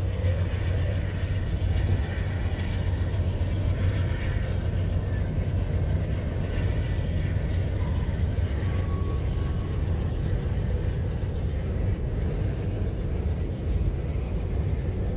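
Freight train rolling across a long steel girder bridge at a distance: a steady, low rumble.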